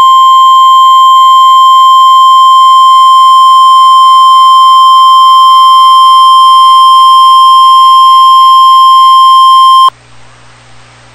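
NOAA Weather Radio 1050 Hz warning alarm tone: one loud, steady, high beep lasting about ten seconds that cuts off abruptly, leaving faint radio static hiss. The tone signals that a weather warning broadcast, here a severe thunderstorm warning, is about to follow.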